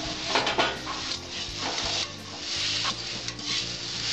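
Metal spatula scraping and stirring nearly cooked red spinach in an aluminium kadai, a string of scrapes about every half second over a steady sizzle from the pan.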